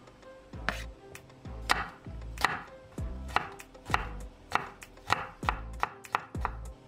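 Chef's knife chopping a green apple into small cubes on an olive-wood cutting board: irregular sharp knocks of the blade on the wood, about two a second.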